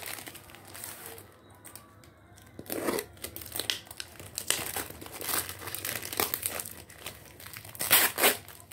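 Clear plastic wrapping being peeled and torn off a small cardboard parcel, crinkling and crackling in irregular fits, loudest about three seconds in and again near the end.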